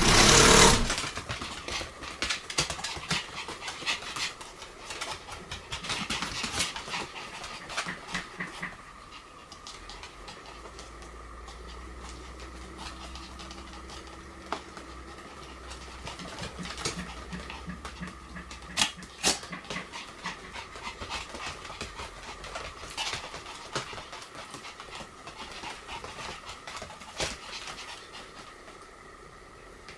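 Pomeranian panting, with a loud burst of noise right at the start and many short scattered clicks and scuffs throughout.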